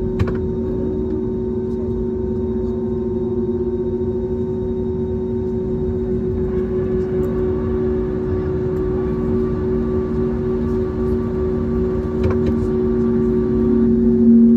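Steady drone of an Airbus A320neo's running jet engines heard inside the cabin, with a couple of sustained tones. Higher tones join about six and a half seconds in and the level slowly rises toward the end, with a short click near the start and another about twelve seconds in.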